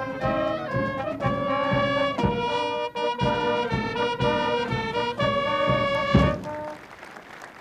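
Brass band music with trumpets and trombones over a steady drum beat, ending on a loud final note about six seconds in.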